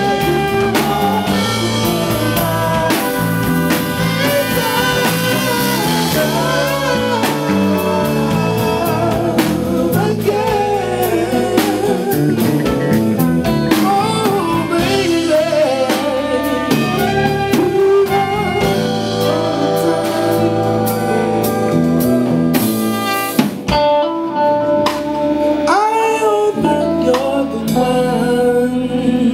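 Live blues band playing: a singer over electric keyboard, drum kit and electric guitar, with a trombone in the opening seconds.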